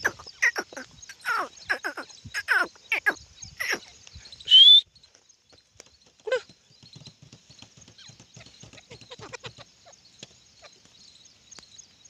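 Grey francolin giving a quick run of short calls, each falling in pitch. A loud rising whistle comes at about four and a half seconds, then one more falling call, then only faint ticking and rustling.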